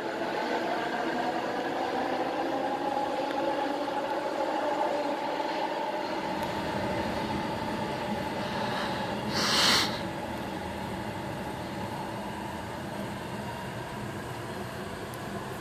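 Steady mechanical whine and hum in an underground light-rail station, several tones drifting slowly in pitch. A low rumble builds about six seconds in, and a short sharp hiss comes about nine and a half seconds in.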